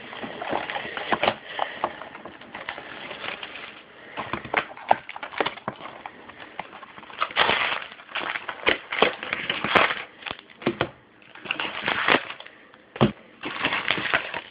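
A sealed box of 2012 Upper Deck football cards being unwrapped: plastic wrapper crinkling and tearing and the cardboard box being handled, in irregular crackling bursts with small clicks.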